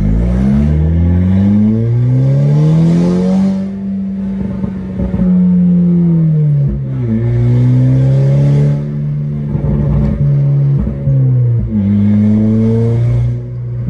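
Volkswagen GTI with a straight-piped exhaust pulling through the gears: the engine note climbs in steps over the first few seconds, holds at a cruise, drops about halfway through, and rises briefly again near the end with a raspy exhaust on each pull.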